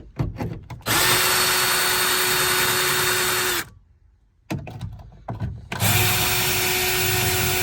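Cordless drill running steadily at a fixed pitch to back out trim panel screws, in two runs of a few seconds each, with a few short knocks and clicks of handling before and between them.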